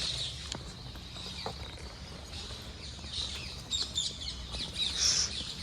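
Birds chirping and twittering: many short, high calls scattered through, over a low steady rumble.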